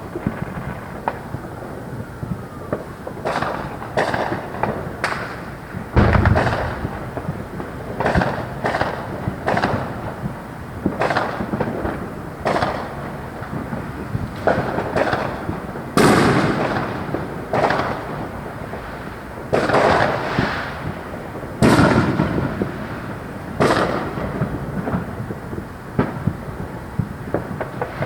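Fireworks going off: an irregular run of bangs and booms, each trailing off in a rolling echo, with the heaviest blasts about six, sixteen and twenty-two seconds in.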